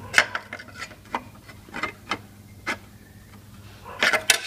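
Thin sheet-metal mounting plate clicking and scraping against the central vacuum unit's metal housing as it is fitted into place by hand: a handful of separate light taps, then a quick cluster of them near the end.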